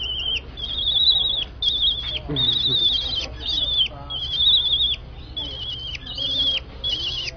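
A caged bird being stroked on the head gives a string of about nine high, warbling calls, each under a second long and ending in a quick downward drop in pitch.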